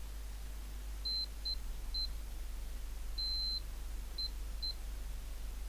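Multimeter continuity beeper giving intermittent high-pitched beeps: several brief blips and one longer beep of under half a second. The needle probes are making only patchy contact with a PCB trace whose solder mask is partly scraped off.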